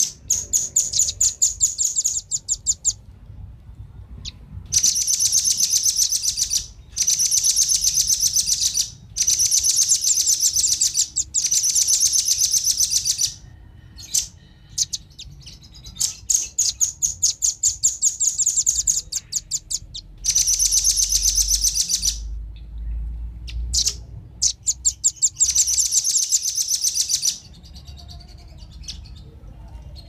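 Velvet-fronted nuthatches (rambatan), male and female, calling in bouts of rapid, high chattering trills two to three seconds long, repeated again and again with short gaps: a lure call for wild birds.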